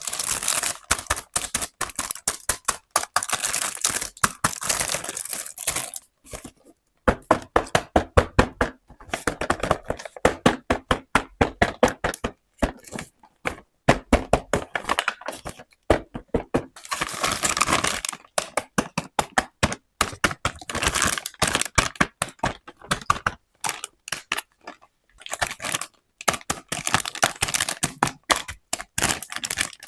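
Small plastic toy pieces and their packaging being handled during unboxing: dense runs of quick clicks and taps in bursts, with brief pauses between.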